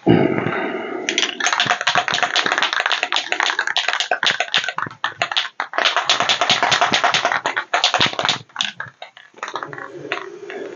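Aerosol spray paint can being shaken hard, its mixing ball rattling in quick, even clicks, with two short pauses before it stops near the end.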